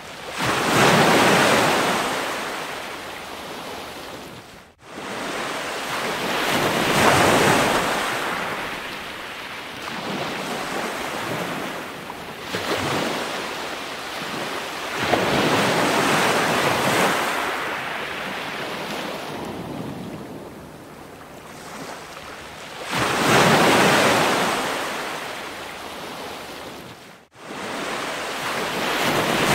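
Ocean surf: waves washing in and receding, the rushing noise swelling and fading about every six seconds, with two brief dropouts.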